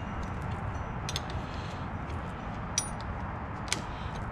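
A few light clicks and taps from gloved hands working at a car battery's terminals and cables, over steady background noise.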